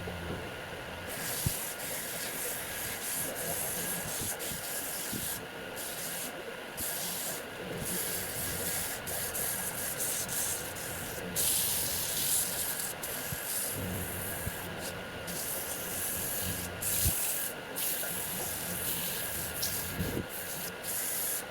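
Sandpaper held against a table leg spinning on a wood lathe, rubbing over the wood with the lathe running. The hiss comes and goes as the paper is pressed on and eased off.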